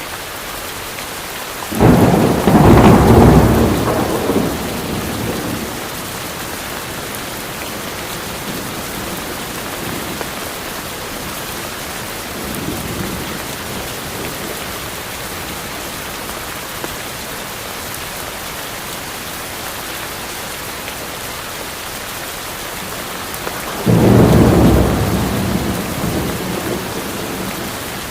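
Steady heavy rain with thunder: a loud rumble about two seconds in that rolls off over a few seconds, a fainter one midway, and another loud rumble near the end.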